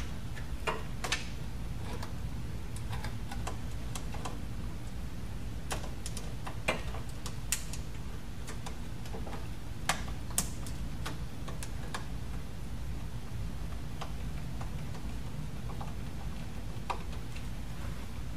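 Scattered light clicks and taps, irregular and a few seconds apart, of hands fitting clamps and a wiring harness onto a metal adapter chassis, over a steady low hum.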